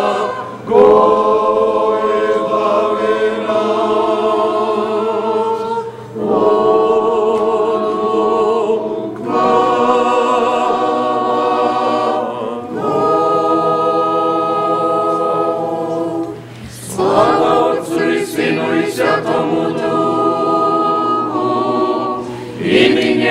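A small mixed group of men and women singing an Orthodox church chant a cappella in Church Slavonic, in held phrases of a few seconds each with short breaks between them.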